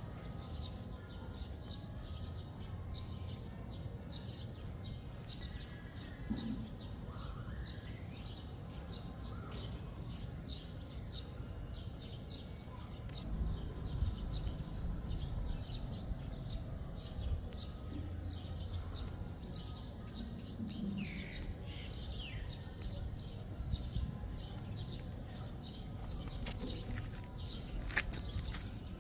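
Small birds chirping over and over, with a steady low rumble underneath.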